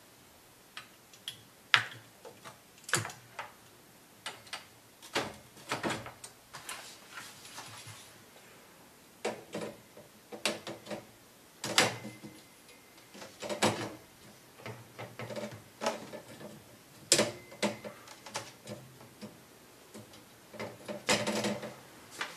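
Stainless-steel bars and shelf of a pole-mounted kitchen rack being fitted into place by hand: irregular metal clicks, knocks and clinks, a few of them ringing briefly.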